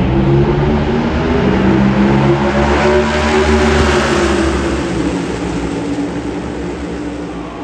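A pack of NASCAR Cup Series stock cars with V8 engines running past at speed. It is loudest about three to four seconds in, then the pitch drops and the sound fades as the pack pulls away.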